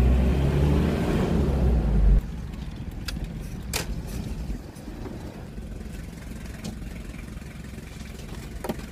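Diesel engine of a small Toyota pickup truck running while driving, heard from inside the cab. The sound drops suddenly about two seconds in, and a quieter engine sound continues with a few sharp clicks.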